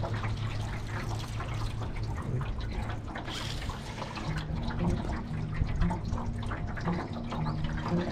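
Water splashing and lapping, with a dense trickling, crackling texture. Background music with low notes comes in about halfway.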